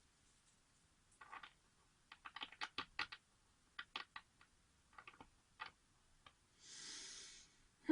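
A run of light, irregular clicks and taps, about a dozen over several seconds, followed near the end by about a second of soft hiss.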